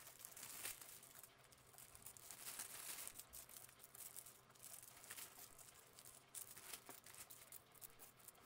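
Faint crinkling of small plastic bags of diamond painting drills being handled and shifted about, in many short, scattered crackles.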